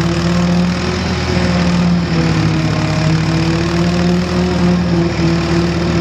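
Diesel tractor engine running at a steady speed, heard close to its vertical exhaust stack.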